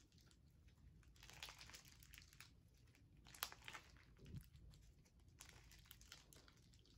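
Faint crackling and crunching of a thick, stiff foam-bead slime being stretched by hand, the foam beads popping in small clusters, one a little sharper about halfway through.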